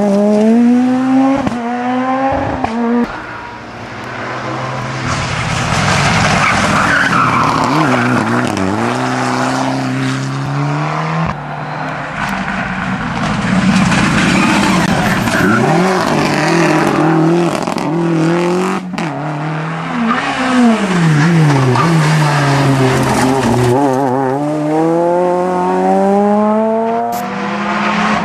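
Rally cars, including a Peugeot and a Subaru Impreza, accelerating hard out of a hairpin one after another: engines revving up and dropping in pitch with each gear change, fading out and then building again as the next car arrives.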